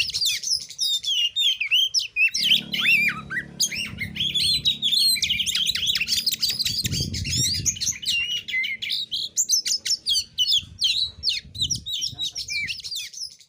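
Oriental magpie-robin (kacer) singing a fast, unbroken stream of sharp whistles, chirps and quick sliding notes: the aggressive challenge song that keepers call 'narung nembak'.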